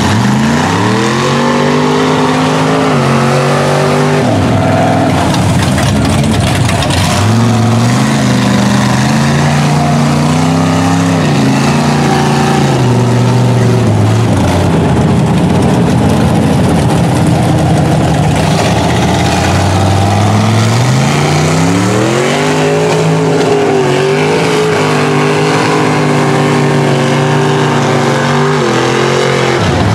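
Mud truck engine revving hard and holding high revs, three times: about a second in, around seven seconds in and around twenty-one seconds in, dropping back between the pulls. A spray of mud and water sounds under it.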